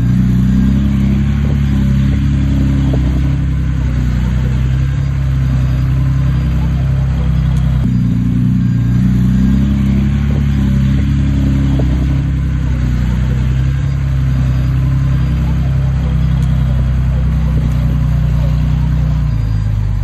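Diesel engine of heavy earthmoving machinery running steadily, its pitch rising somewhat and falling back again in the middle.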